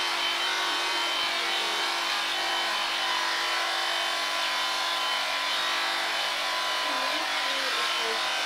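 Electric sheep-shearing handpiece running steadily as it cuts through a sheep's fleece: a constant motor hum at an even level.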